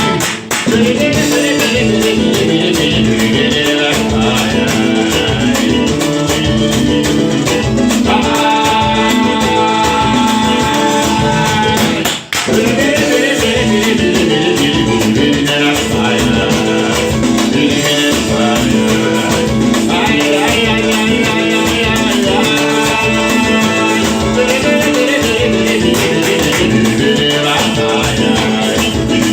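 Music with singing, plucked guitar and rattling percussion in a Latin American style. The sound drops out for an instant shortly after the start and again about twelve seconds in.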